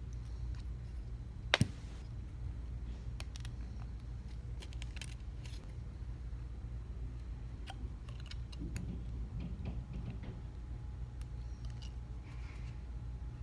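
Small repair tools clicking and tapping on the parts of an iPhone 6s being taken apart, with one sharp, louder click about one and a half seconds in, over a steady low hum.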